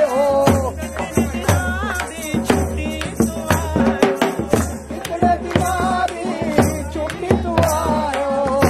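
Live Pahari folk dance music: a wavering melody over a drum beating steadily about twice a second.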